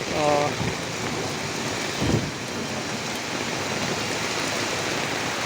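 Heavy rain falling steadily, with a brief vocal sound near the start and a single dull thump about two seconds in.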